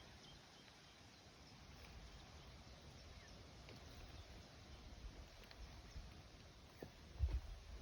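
Faint, scattered short high bird chirps, over a low rumble that gets louder about seven seconds in.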